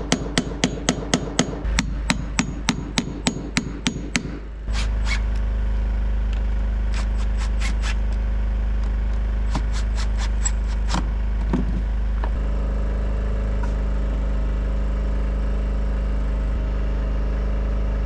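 A hammer tapping a socket that serves as a punch, pushing parts into a door threshold: quick sharp metal taps, about three a second. After about four and a half seconds the tapping stops and a steady low rumble with a few scattered light clicks takes over.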